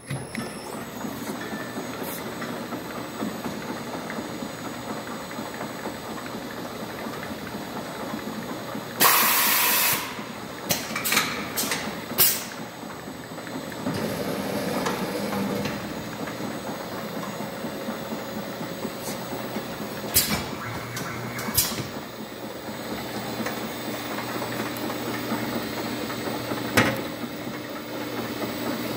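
ENOS automatic bottle labeling machine running: a steady mechanical whir from its drive and conveyor, with a loud hiss lasting about a second a third of the way in and scattered sharp clicks and knocks later on.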